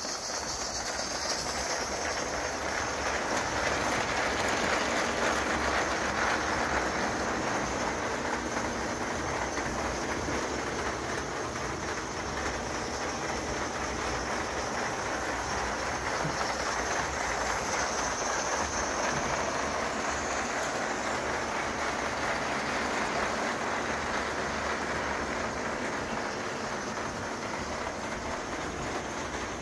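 1915 Bing gauge 1 spirit-fired live steam locomotive running along its track with a steady hiss of steam. The hiss includes steam leaking from the front of the locomotive.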